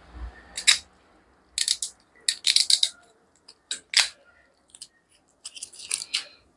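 Plastic seal being torn and peeled off the cap of a small whisky bottle: a run of crinkling crackles and sharp clicks in several short clusters.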